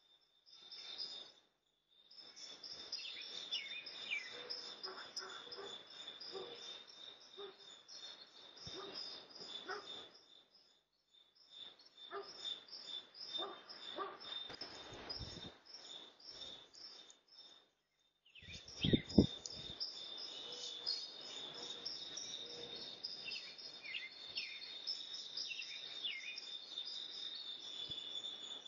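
Outdoor ambience through a doorbell camera's microphone: a steady high-pitched whine with birds chirping over it. The audio cuts out to silence several times, and there is a brief louder low sound about two-thirds of the way through.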